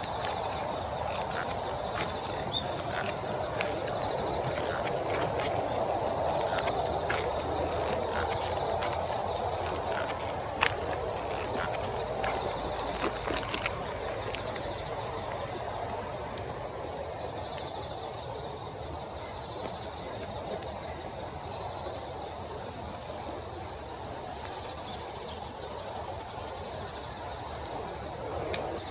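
Insects chirping steadily, a high continuous trill with a pulsing one alongside it, over a rushing background noise; scattered light clicks sound through the first half.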